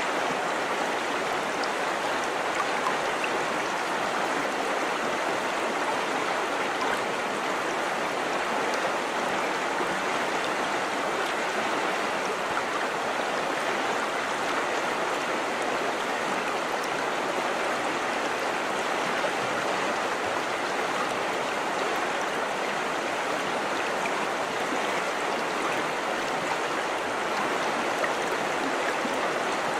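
River water flowing over rocks: a steady, even rush with no break or change.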